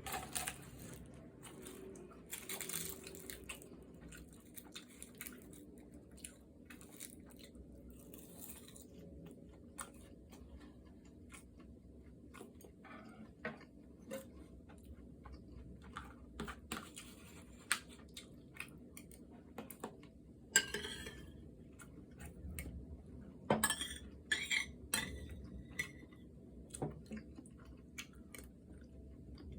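Eating sounds: chewing with scattered clinks of cutlery against dishes.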